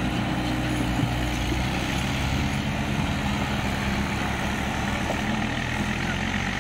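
Tractor's diesel engine running steadily under load, hauling a trolley loaded with sand through soft mud.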